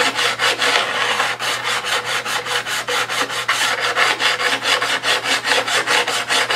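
Hand-held diamond sharpening paddle rubbed quickly back and forth along the steel cutting edge of a guillotine paper cutter, an even rasp of about five strokes a second. The edge is being honed flat to work out chips in it.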